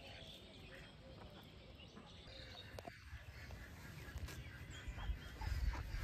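Faint outdoor ambience with ducks quacking softly. A low rumble rises near the end.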